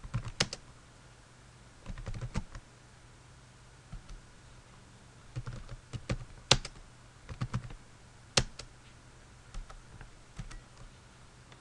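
Computer keyboard keystrokes in short bursts with pauses between them, as short commands are typed.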